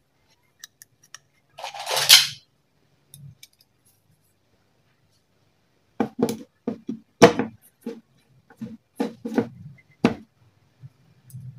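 Screwdriver and screws working against a flat-screen TV's sheet-metal chassis: a short scraping rustle about two seconds in, then a run of irregular metallic clicks and knocks for about four seconds.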